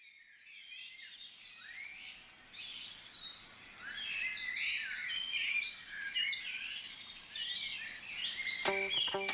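Dawn chorus of many songbirds singing at once, fading in over the first few seconds. Plucked guitar notes come in near the end.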